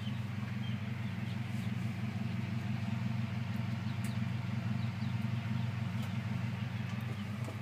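Steady low electric hum from the homemade incubator's fan motor, with faint, high, short chick peeps scattered over it.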